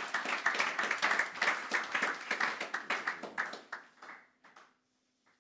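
Audience applauding, the clapping thinning out and stopping shortly before the end.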